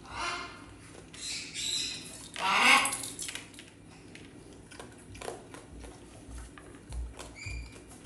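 Parrot squawking several times in the first half, then giving a short clear whistle near the end. Scattered small clicks and crunches come from a raccoon eating dry kibble from a steel bowl.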